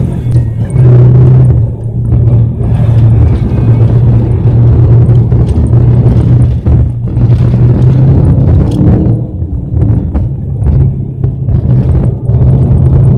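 A car's engine drone and tyre rumble over rutted, snow-covered ice, heard loud inside the cabin, with frequent irregular knocks and jolts from the bumps.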